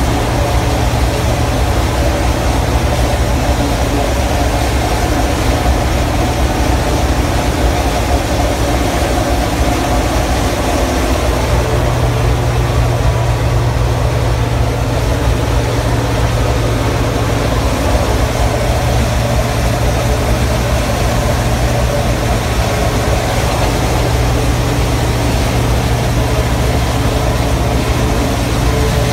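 New Idea 709 Uni-System power unit's engine running steadily under load, with its 868 forage chopper working through standing corn, heard from inside the cab as a continuous low drone.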